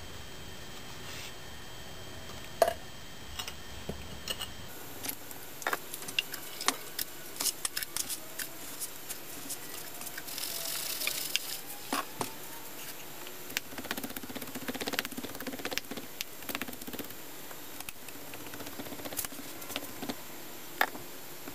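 Green molding sand being rammed by hand into a wooden flask with a metal rammer: irregular dull knocks and clicks as the rammer strikes the sand and brushes the flask. A brief hiss about halfway through.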